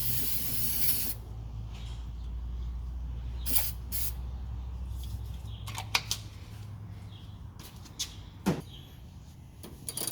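A loud spray-like hiss stops about a second in. A low hum follows, with a few short clicks and knocks scattered through the rest.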